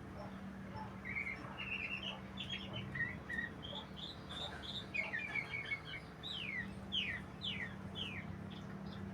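A songbird singing: a run of short, varied chirps and warbles, then four quick whistled notes that each slide downward in pitch.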